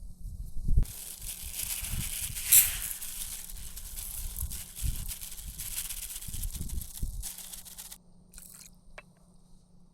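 Crinkly rustling and crunching that starts about a second in, with a few soft thumps, and stops about eight seconds in.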